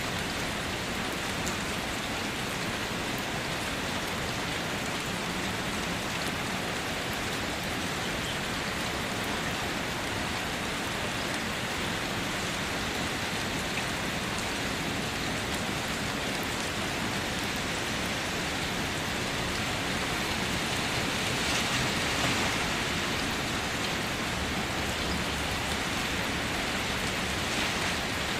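Steady rain falling and hitting surfaces, a little louder for a moment about three quarters of the way through.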